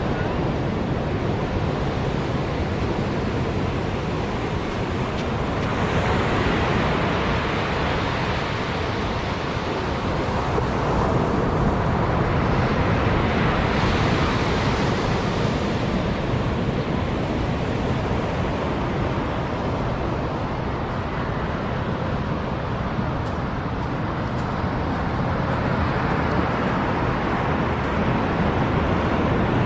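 Ocean surf rushing, swelling and easing every several seconds, with wind on the microphone.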